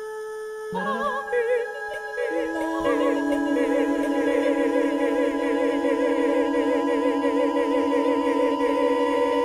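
A cappella singing: several voices with vibrato come in about a second in over a steady held tone, and sustain long notes.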